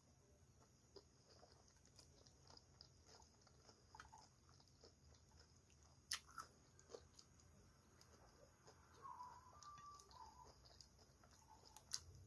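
Faint chewing and small wet mouth sounds of someone eating pasta, against near silence, with scattered soft clicks. A sharper click about six seconds in comes from the chopsticks on the plate.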